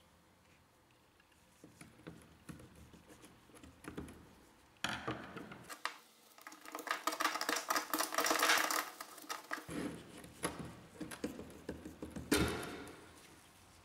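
Rusty nut and washer being worked loose and off the threaded shaft of an old hand-cranked grinder's cast-iron frame: small metal clicks at first, then a dense stretch of rusty metal scraping and clicking, with one sharper, louder clack near the end.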